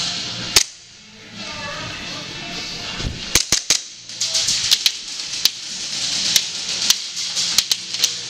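Airsoft pistol shots: one sharp crack just after the start, then a string of about a dozen more from about three seconds in, some in quick pairs and threes, over background music.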